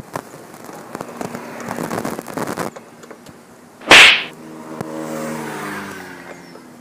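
Clicks and scraping of hand work on a plastic car tail-light housing with a screwdriver, then a brief, very loud burst of noise about four seconds in, followed by a passing motor vehicle's engine whose pitch falls gently as it goes by.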